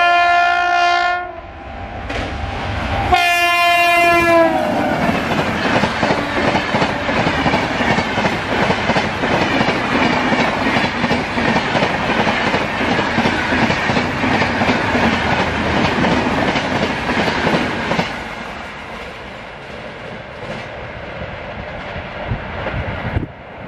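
WAP-7 electric locomotive's horn sounding two blasts as it approaches, the second dropping in pitch near its end as the locomotive passes. Then the LHB coaches of the Rajdhani Express rush past at speed with a continuous clatter of wheels on the rails, fading after about eighteen seconds as the last coaches go by.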